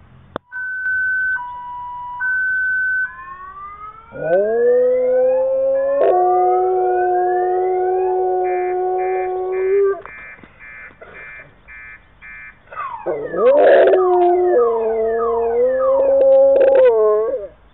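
A Rottweiler howls along with an electronic siren that cycles through an alternating two-note hi-lo tone, rising wails and a fast pulsing tone. The dog's long held howls start about four seconds in and break off near ten seconds. It howls again from about thirteen seconds, with notes that waver and slide.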